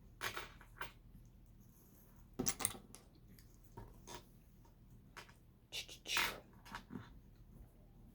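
Loose LEGO pieces being handled and sorted: a few scattered plastic clicks and rattles at irregular moments, the loudest about two and a half seconds in and again a little after six seconds.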